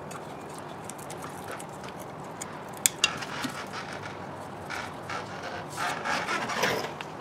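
Spanner and gloved hands working at an engine's oil pressure switch. Two sharp metallic clinks come about three seconds in, with scattered small ticks, then a stretch of scraping and rustling near the end.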